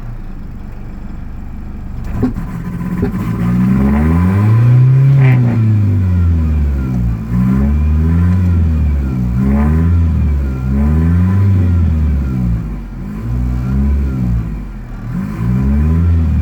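1993 Ford Mustang 2.3 L four-cylinder engine running at a rough idle. It holds steady for about two seconds, then its speed repeatedly rises and falls every second or two.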